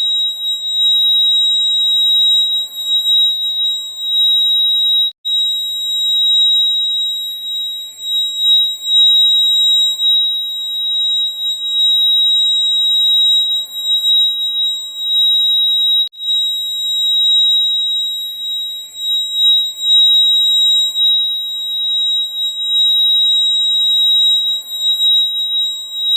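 Fire alarm sounder giving a continuous, loud, high-pitched tone. It breaks off for an instant about five seconds in and again about sixteen seconds in.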